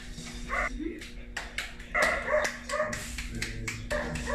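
A dog barking several times in short barks.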